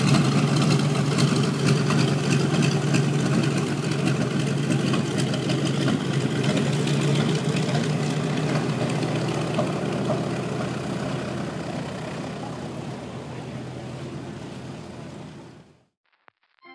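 Vintage warbird's piston engine running steadily after a cold, wet start, with a strong low hum, slowly fading over the last several seconds and cutting off sharply about 16 seconds in.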